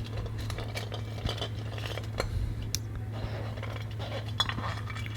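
Hands opening a plastic surprise egg and handling the small toy car inside: scattered light plastic clicks and clatters over a steady low hum.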